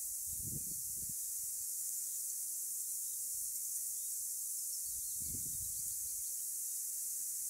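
Steady high-pitched hiss of background noise, with two soft low rumbles, about half a second in and again about five seconds in.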